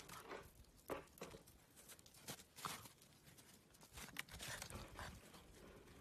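Faint, irregular crunching and crackling of snow as a white puppy steps and lunges about in it.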